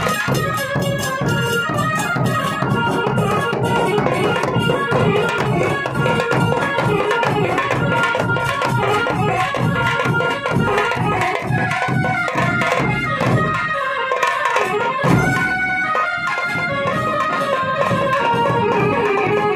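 Folk drumming on dhol barrel drums and a stick-beaten frame drum, a busy rhythm with held melody notes over it. The low drum strokes thin out briefly about 14 seconds in, then come back.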